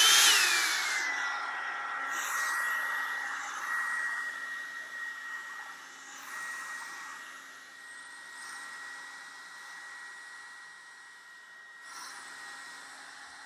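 Revlon One-Step hair dryer brush switching on: its motor whine overshoots, glides down and settles into a steady high whine over the rush of air, on its low setting. It is loudest at the start and slowly grows quieter.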